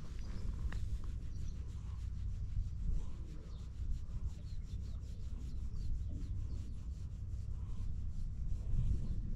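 Fingers scratching a cat's fur under its chin and along its cheek: a quick series of soft scratching strokes, with a low rumble underneath.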